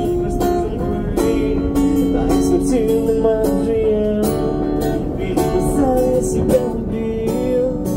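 Acoustic guitar strummed in a steady rhythm, a busker's song played live between sung lines.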